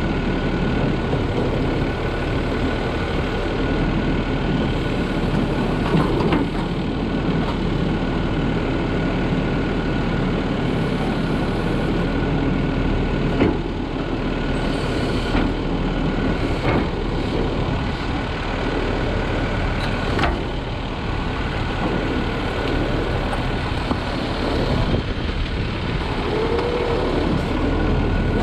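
New Way automated side-loader garbage truck running, with the packer compacting a futon in the hopper. There is steady engine and machine noise under a thin steady whine, broken by several sharp knocks and a short creak near the end.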